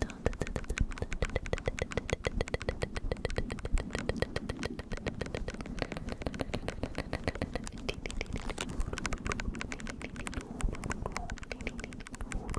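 Close-miked scratching on a microphone: a dense, fast run of crackly ticks without a break.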